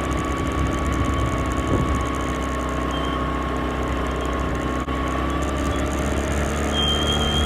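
Motorcycle engine running steadily with a low rumble and a constant whine, with a brief break about five seconds in.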